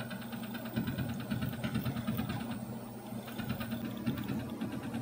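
Tormach PCNC 770 mill table jogging under its stepper-motor drives: a steady motor hum with rapid, even ticking.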